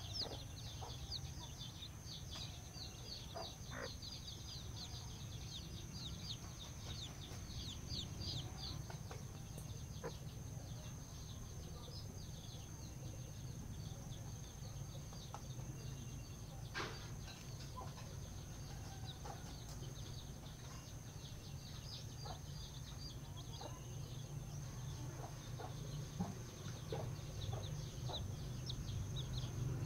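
A brood of young chicks peeping, a dense run of quick, short, high falling calls that thins out in the middle and picks up again near the end.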